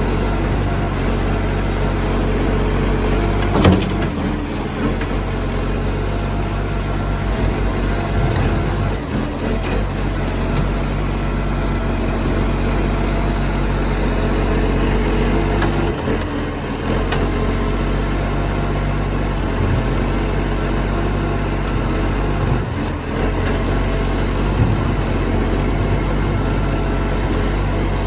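Acco garbage truck's diesel engine running loud and raw through a massive exhaust leak. There is a sharp bang about four seconds in.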